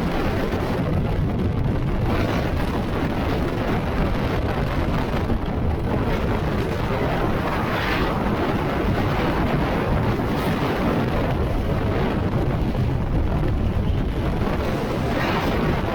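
Strong mountain wind buffeting the microphone: a loud, continuous low rumble that surges in gusts.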